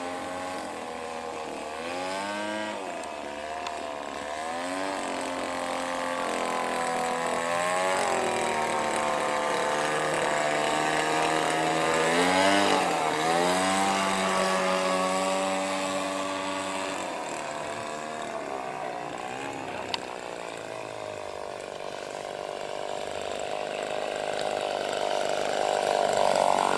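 Two-stroke petrol grass-cutter engine powering a radio-controlled model airplane in flight, its pitch sliding up and down with throttle and as the plane passes. It grows loudest about halfway through, fades, then gets louder again near the end as the plane comes in low.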